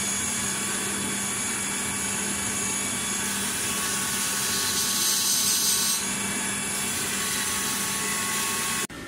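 Belt grinder running with a steady hum and high whine as the steel blade of a hand-forged herb chopper is ground on it, with a louder grinding hiss from about three and a half to six seconds in. It cuts off suddenly near the end to quieter room noise.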